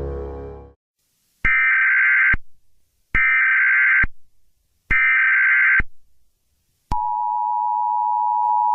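Emergency Alert System SAME header: three identical bursts of warbling digital data tones, each just under a second long with short gaps between. About seven seconds in, the steady two-tone EAS attention signal begins, announcing a tornado warning.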